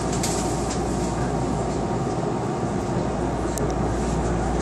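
Steady hum and rumble inside the cab of a stationary Osaka Municipal Subway 66 series train, with a faint click about three and a half seconds in.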